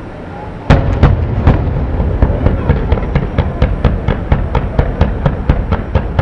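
Fireworks barrage: a sudden loud bang about a second in, then a rapid, evenly spaced string of sharp bangs, about four a second.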